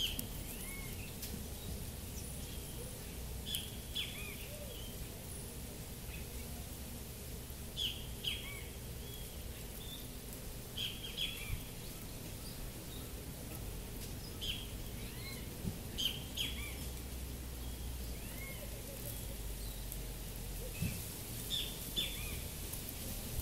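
Outdoor ambience of small birds chirping: short, high chirps every few seconds, often two or three in quick succession, over a steady low background rumble.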